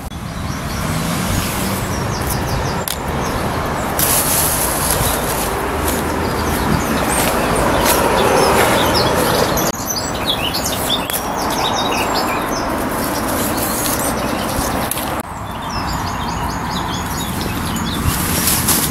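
Steady rumble of road traffic from a busy roundabout, with small birds chirping and singing over it.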